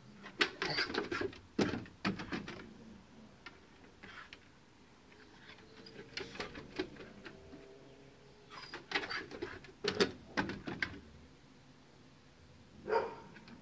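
A dog's paws and claws pattering and clicking on wooden deck boards in several short bursts as she runs and leaps about.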